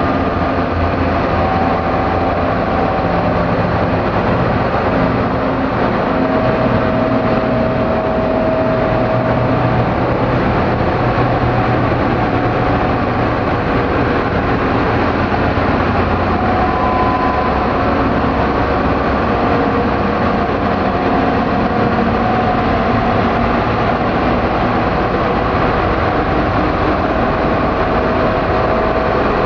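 Dark-ambient noise drone: a loud, steady, dense wall of rumbling noise, heaviest in the low end, with faint held tones fading in and out above it.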